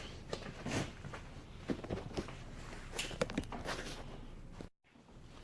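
Scattered light knocks and clicks of handling, a few in each second, with a brief cut to silence near the end.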